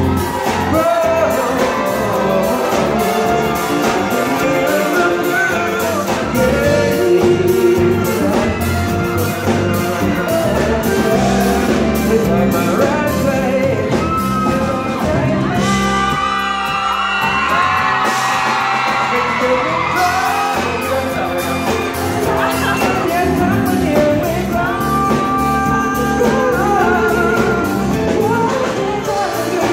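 Live band playing a song with a male lead singer over electric guitars, bass and keyboard, amplified through the PA.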